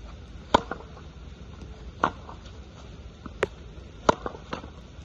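Tennis ball struck by a racket and bouncing on a wet hard court: a series of sharp pops, the loudest about half a second in and about four seconds in, with weaker ticks between.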